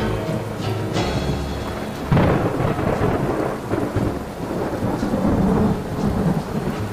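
Thunderstorm: thunder rumbling over steady rain, with a loud crack of thunder about two seconds in.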